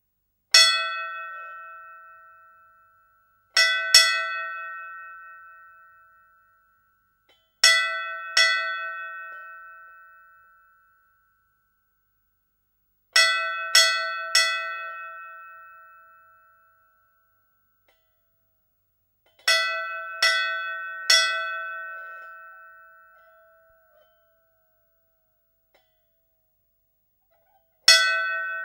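Hindu temple bell struck in groups of one to three strokes, each stroke ringing out with a few clear tones and fading over two to three seconds, with silent pauses of several seconds between the groups.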